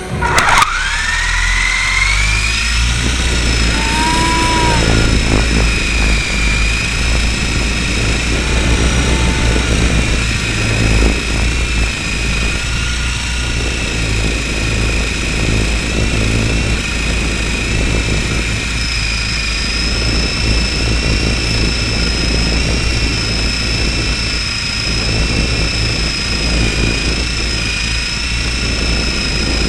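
Radio-controlled helicopter's motor and rotor, heard from a camera mounted on the helicopter itself. A whine rises over the first couple of seconds as it spools up, then holds steady over a low rotor drone.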